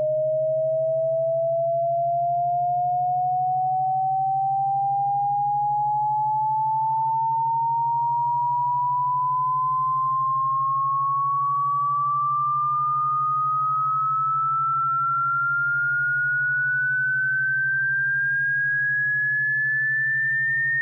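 Electronic pure tone sweeping slowly and steadily upward in pitch, from a mid tone to a high one, played as a cat-repellent sound. A steady low pulsing hum sounds underneath.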